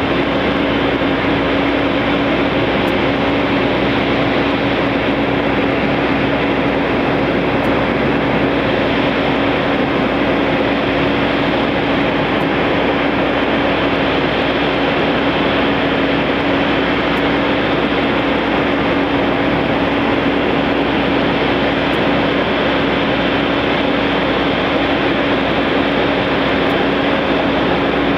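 Embraer E190's General Electric CF34 jet engines running steadily at idle: an even rush of noise with one constant low hum.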